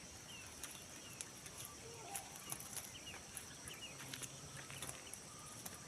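Faint countryside ambience: scattered short bird chirps over a steady, high insect drone.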